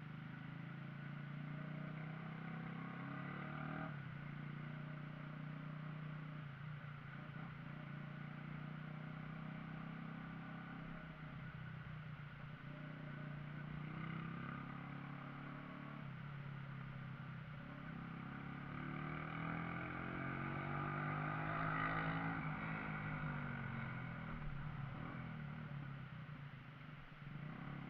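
Shineray Viúva Negra motorcycle engine running steadily while riding, its pitch climbing and then falling back about two-thirds of the way in.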